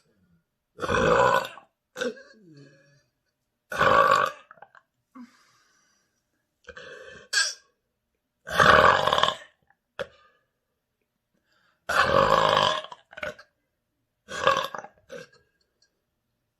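A person's deliberate burps from gulped air: five loud ones a few seconds apart, each under a second long, with short, softer sounds between them.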